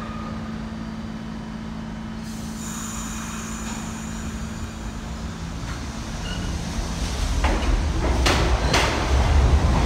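R68 subway train pulling out of the station. A steady low hum while it stands gives way to a low rumble that grows louder as it picks up speed. A few sharp wheel clacks come in the last couple of seconds.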